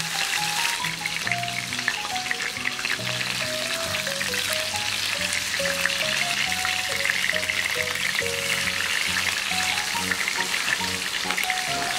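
Tuna steaks sizzling and crackling steadily in hot oil in a frying pan. A simple melody of background music with bass notes plays alongside.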